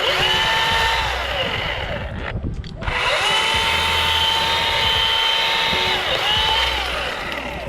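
Battery-powered Milwaukee chainsaw cutting a branch: a high electric motor whine that drops in pitch as the chain bites into the wood. It stops briefly about two and a half seconds in, then runs and cuts again.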